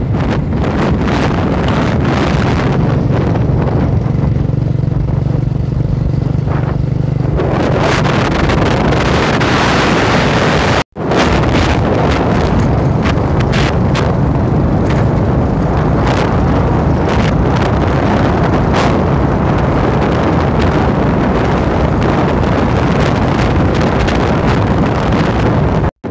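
Heavy wind buffeting the microphone on a moving motorcycle, over the steady running of its engine. The engine hum is clearest in the first seven seconds, and the sound drops out briefly about eleven seconds in.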